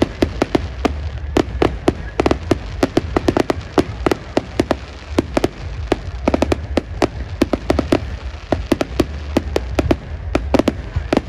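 Fireworks display: a barrage of red comets fired in quick succession, giving a dense, irregular stream of sharp bangs and crackles, several a second, over a low rumble.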